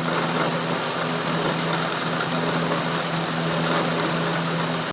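A motor running steadily with a low hum and a constant wide machine noise, cutting off suddenly at the end.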